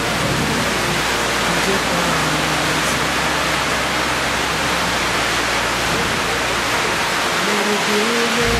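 Heavy monsoon rain pouring down onto open water, a dense steady hiss.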